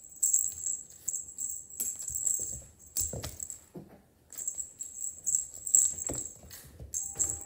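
Cat wand toy jingling and rattling in quick irregular bursts as it is swished about, with a few soft thumps as a Bengal kitten pounces on the wooden floor, about three seconds in and again near six seconds.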